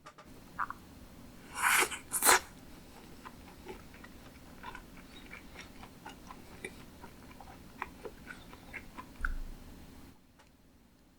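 A person chewing sushi close to the microphone, with many small wet mouth clicks. Two louder noisy sounds come about two seconds in, and the chewing stops near the end.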